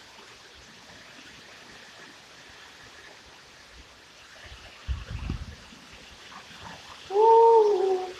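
Steady hiss of heavy rain and gusty wind, with low rumbling wind buffets on the microphone about five seconds in. Near the end a loud pitched tone lasts about a second, bending slightly downward as it fades.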